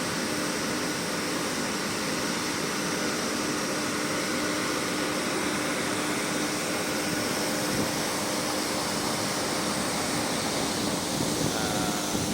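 Excavator engine running steadily at constant speed: an even mechanical hum with one unchanging tone.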